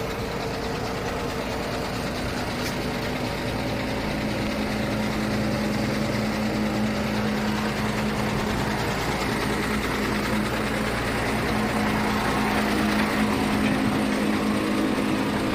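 A vehicle engine running steadily at idle, a low even hum that grows a little louder over the seconds.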